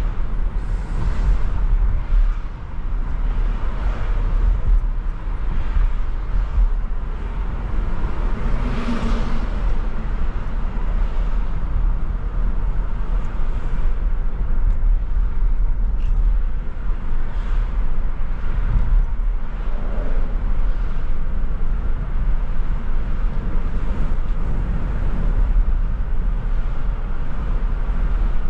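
Car driving on city streets: a steady low road and engine rumble with traffic noise, swelling briefly a few times.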